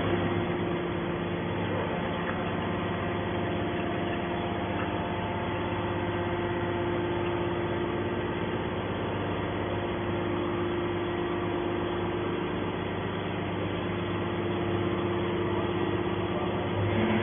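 Hydraulic can baler running, its motor and pump giving a steady hum with a fixed tone.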